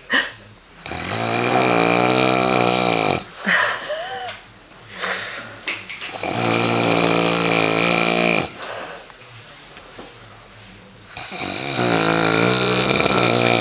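A man snoring loudly in his sleep: three long snores about five seconds apart, each lasting a little over two seconds.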